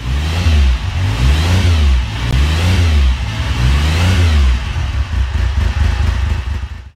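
An engine revved about four times in a row, each rev rising and falling in pitch over roughly a second, then running more roughly before cutting off abruptly.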